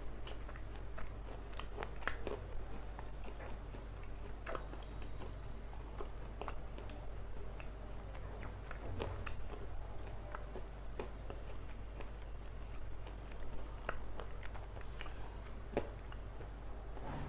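Close-miked chewing of something hard and crunchy, billed as a black stone: scattered crisp crunches and clicks, a few louder than the rest, over a steady low hum.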